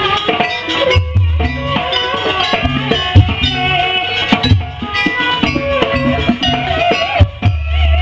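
Jaranan campursari ensemble music accompanying a dance: drums keeping a beat under a held, wavering melody line.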